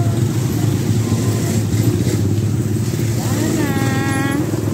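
Motorcycle engine running steadily at close range, a low continuous rumble. Near the end a person's voice calls out briefly.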